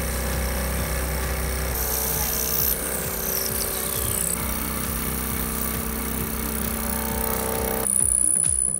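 Vertical milling machine's high-speed-steel end mill cutting 6061 aluminium angle: a steady motor and spindle hum with the fine rapid chatter of the cut, under background music. The sound changes abruptly near the end.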